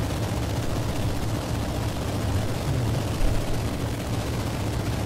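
Waco YMF biplane's Jacobs seven-cylinder radial engine running steadily in flight, a constant low drone under an even rush of air noise.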